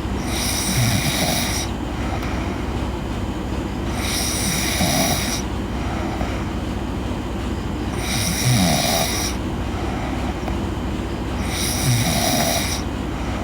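A sleeping woman snoring: four snoring breaths, evenly spaced about four seconds apart, over a steady low rumble.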